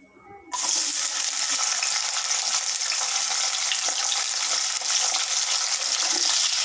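Brinjal (eggplant) wedges dropped into hot oil in a non-stick kadai: a sizzle of frying starts suddenly about half a second in and goes on steadily.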